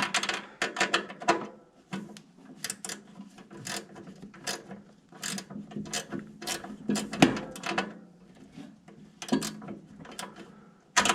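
Small mini ratchet clicking in short, irregular spurts of strokes as a screw is worked loose.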